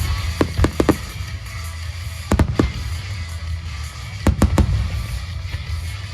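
Aerial fireworks shells bursting with sharp reports in quick clusters, three in the first second, two about two and a half seconds in and three about four and a half seconds in, with music playing underneath.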